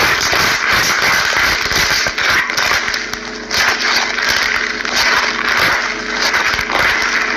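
Slime being squished, with a dense run of crackling and small pops.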